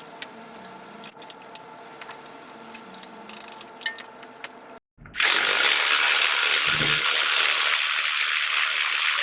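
Light clicks and clinks of tools being handled. About five seconds in, a battery-powered ratchet starts running steadily, spinning a loosened spark plug out of the engine.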